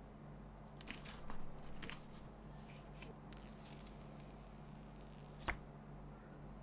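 Close-up, quiet handling sounds of unboxing a new iPhone 13. There are a few light clicks about a second in, then a short spell of paper rustling and peeling as the paper screen cover is pulled off the phone. A single sharp click comes near the end.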